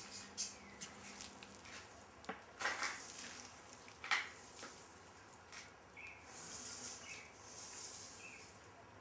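A bamboo floorboard longbow is drawn and let down on a tillering board by a rope: faint rubbing and scraping with a few sharp clicks, the loudest about three and four seconds in, then a soft hiss of rope sliding near the end.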